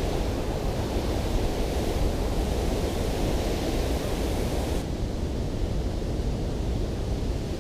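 Steady rushing of water coming off a dam spillway, a dense even noise. Its high hiss cuts away suddenly about five seconds in.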